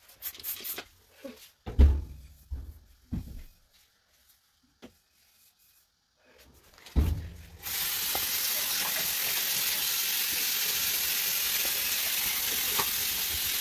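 A few knocks and handling thumps, then, about eight seconds in, a steady hiss starts abruptly and holds evenly.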